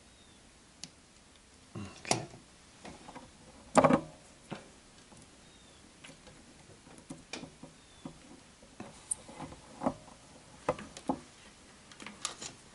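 Scattered clicks, taps and knocks from hands handling a small computer board's cables and plugs, with a sharper knock about four seconds in.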